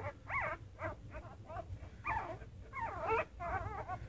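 A litter of young Shetland sheepdog puppies whimpering and squealing: a steady run of short, high cries that rise and fall, several a second, overlapping one another.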